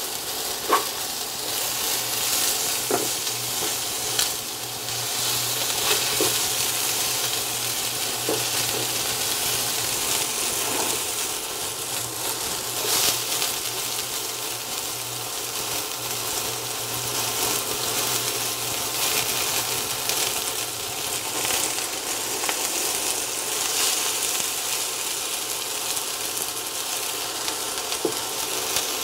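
Chicken breast pieces sizzling in olive oil in a nonstick skillet, with occasional taps and scrapes of a spatula turning them in the pan. A low steady hum runs underneath.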